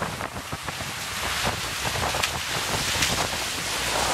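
Steady rush of wind on the microphone over water hissing and spraying past the hulls of an F-31 Corsair trimaran sailing at about 15 knots.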